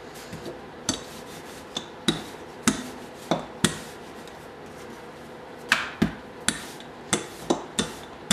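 Wooden rolling pin knocking against a hard countertop as thin dough is rolled out, about a dozen sharp knocks, most of them half a second to a second apart, with a pause of nearly two seconds in the middle.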